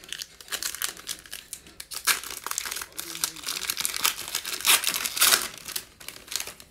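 Foil wrapper of a 2019-20 Panini Illusions basketball card pack being torn open and crinkled by hand: dense, irregular crackling crinkles throughout, loudest in the second half as the wrapper is pulled off the cards.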